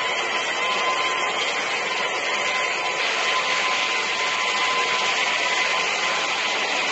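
Canister wet-and-dry vacuum running steadily, a constant rushing noise with a high whine over it.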